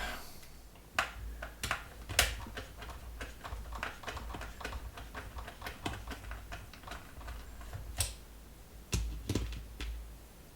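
Irregular clicks and knocks of hard plastic fan-housing parts being handled and turned over during a teardown, with a few louder knocks about a second in, just after two seconds, and around eight to nine seconds.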